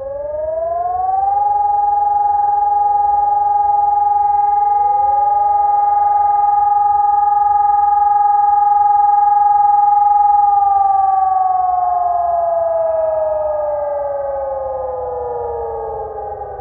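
Civil defence siren test: a siren tone rises within about a second and a half, holds a steady high pitch for about nine seconds, then slowly falls near the end. Several fainter siren tones at other pitches rise and hold underneath it.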